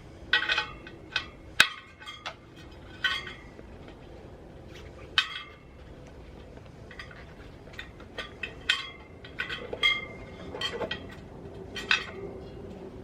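Light metallic clinks and taps, a dozen or so at irregular intervals, from hands and tools working against a motorcycle wheel rim while an inner tube is fitted into the tyre.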